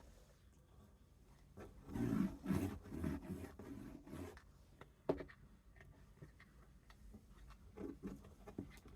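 Paper crinkling and rustling as a gift bag strip is handled, loudest for a couple of seconds about two seconds in, with a sharp click about five seconds in.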